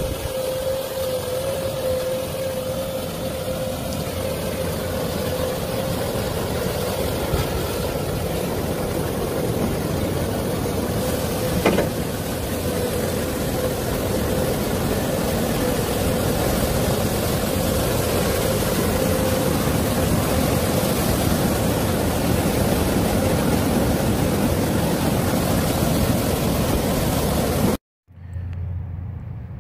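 Komatsu hydraulic excavator's diesel engine running steadily, with a steady whining tone over the engine noise. It cuts off abruptly near the end.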